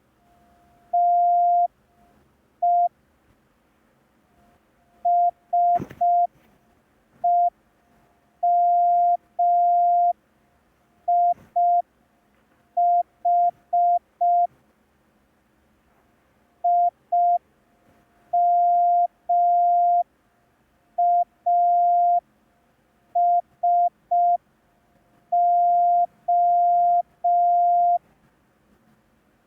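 Morse code practice tone: one steady beep keyed on and off in short dots and long dashes, grouped into characters with silent gaps between them. A sharp click about six seconds in, and a fainter one shortly before the twelfth second.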